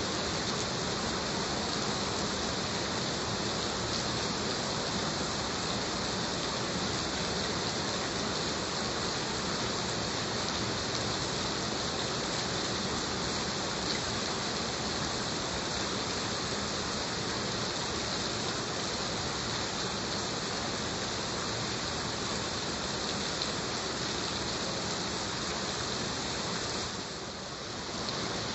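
Heavy rain falling steadily, a dense, even hiss that dips briefly in level near the end.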